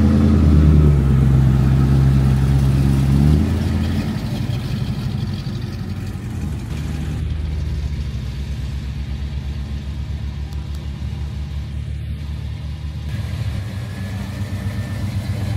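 Muscle car engine accelerating loudly as it pulls away, its pitch stepping up. After about three and a half seconds it drops to a lower, steady, pulsing engine sound that grows again near the end.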